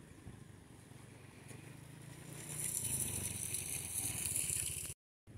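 Wind rumbling on the microphone, with water splashing in the shallows that grows louder and hissier about halfway through. The sound cuts out for a moment near the end.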